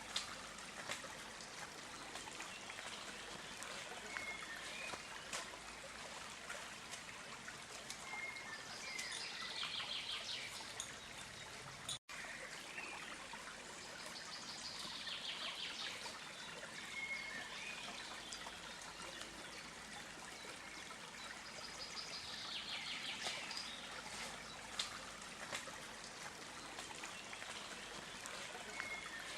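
Small stream trickling and babbling steadily, with a bird calling briefly every few seconds over the water. The sound cuts out for a split second about twelve seconds in.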